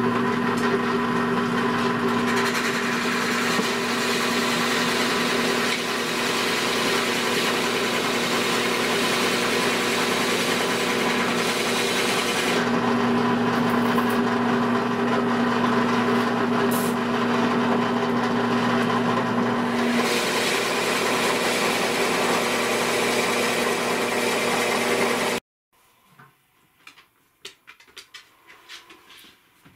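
Benchtop drill press running and boring a hole into a section of birch log: a steady motor hum with the noise of the bit cutting wood, which cuts off suddenly near the end, followed by a few faint handling clicks.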